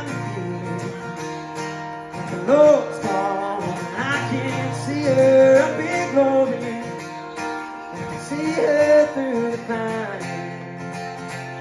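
A man singing a slow country song to his own strummed acoustic guitar, the sung lines coming in several long phrases over steady chords.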